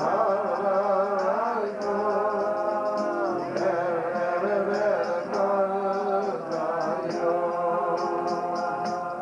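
A man singing a slow melody, with long, wavering held notes and slides between them. He is accompanied by a strummed acoustic guitar and a piano.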